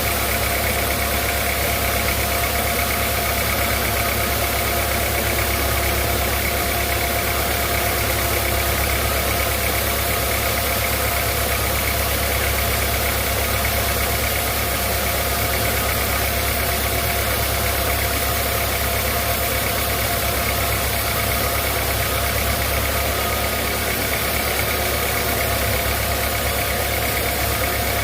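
Sawmill machinery running steadily with a constant low hum and no change in pitch or level.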